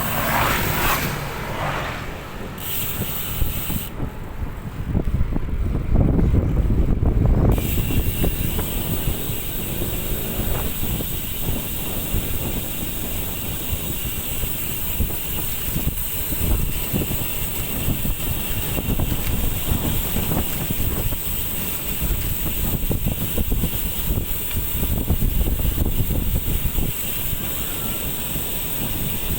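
Steady road and wind noise from a moving vehicle on the road, with wind buffeting the microphone in a heavy low rumble that is loudest from about four to seven seconds in.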